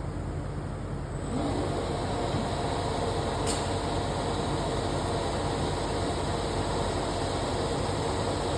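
Woodworking machine's drives start up about a second in with a brief rising whine, then run steadily as the feed rolls and cutter heads move back into their closed positions, over a constant low machine hum. One sharp tick a few seconds in.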